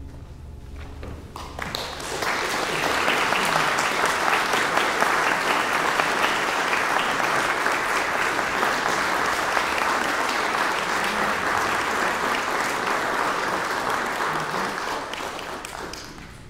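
Audience applauding: a few scattered claps about a second and a half in swell into steady applause, which dies away near the end.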